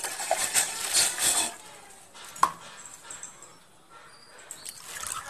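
Tender coconut water poured from a container into a pan, splashing for about a second and a half; a single sharp click follows a second later.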